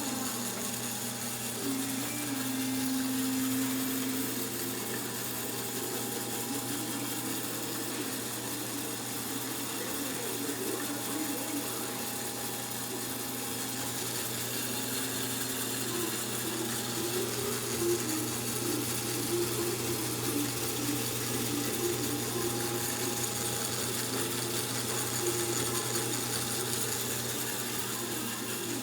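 Treadmill motor driving a 30:1 gear case on a homemade ventilator, running steadily with a continuous motor hum and whine.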